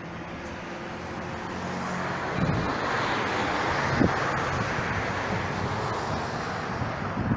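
A car driving past: its engine and tyre noise swells to its loudest about three to four seconds in, then eases off.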